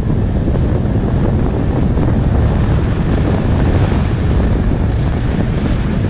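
Wind buffeting the microphone of a skier's action camera at about 25 mph: a loud, steady low rumble.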